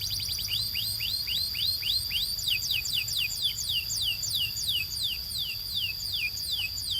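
Canary singing a long tour: a held high whistle with a string of quick downward-slurred notes repeated about three times a second.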